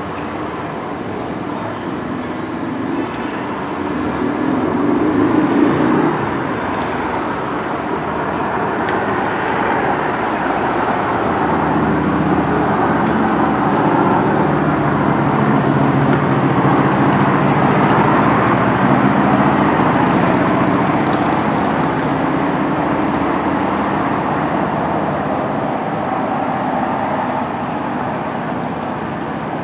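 Steady motor-vehicle traffic noise with an engine drone, which grows louder and hums more plainly through the middle.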